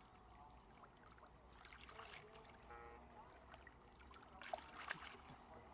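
Faint sloshing of shallow muddy water stirred by hands groping along the bottom for fish, with a couple of sharper splashes near the end.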